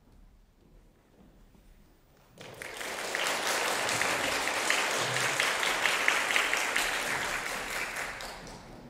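Audience applauding: after a near-silent pause the clapping starts suddenly about two and a half seconds in, holds full for several seconds, then dies away near the end.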